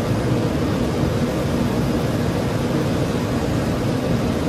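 Steady cockpit noise of an Embraer 175 airliner on final approach: an even rumble and rush of airflow and engine noise, mostly low, with a faint steady hum.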